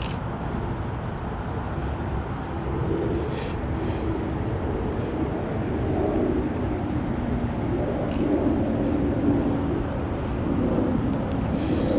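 Wind buffeting the microphone as a steady low rumble, with a few light clicks.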